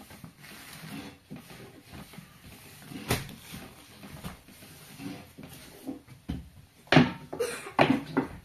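A few sharp knocks and clatters from objects being handled: one about three seconds in, then a quick run of louder ones near the end.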